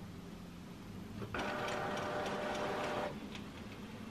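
Epson SureColor P600 inkjet printer's feed motor drawing a sheet of front-loaded fine art paper through: a steady mechanical whir with a faint whine that starts about a second in and stops after about two seconds.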